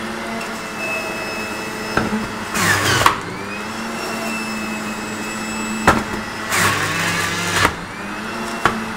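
Sage 3X Bluicer Pro's centrifugal juicer motor running at its high speed setting 10 while grinding whole apples. Twice a loud grinding stretch comes as an apple is pressed down the chute, the motor note sagging under the load and then picking back up. A few short sharp knocks fall in between.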